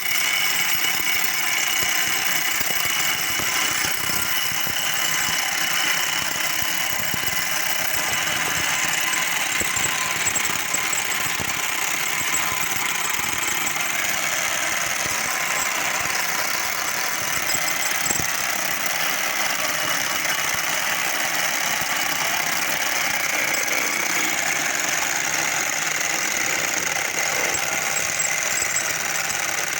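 Powered concrete-cutting machinery running steadily and loudly, with a continuous high-pitched whine over the grinding noise.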